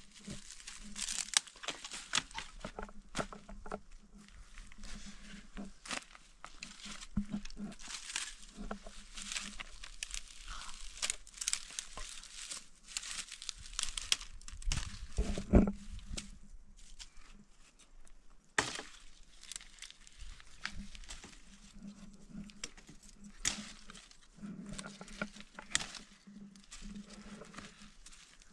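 Irregular crinkling and rustling with many small clicks and crackles, and one louder knock about fifteen and a half seconds in.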